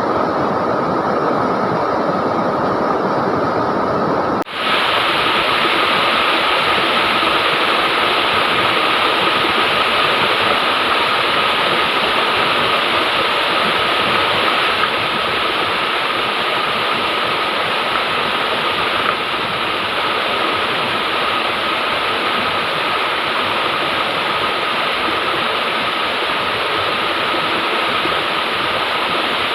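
River water rushing in a steady, loud hiss. It dips briefly about four seconds in and comes back brighter and hissier.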